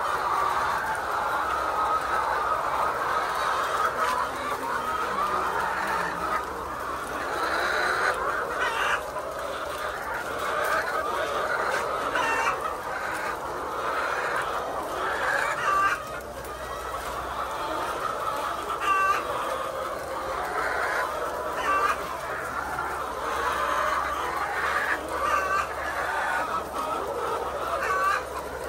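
A large flock of layer chickens calling together in a dense, continuous chorus of clucks. Sharper single calls stand out about every three seconds.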